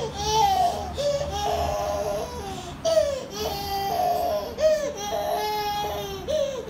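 A toddler crying, a string of drawn-out cries one after another, in protest at being made to stop playing with water.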